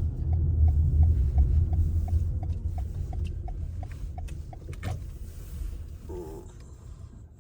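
Car engine and road rumble heard from inside the cabin, fading away as the car slows. A light regular ticking runs over it at about three ticks a second, and a short squeak comes near the end.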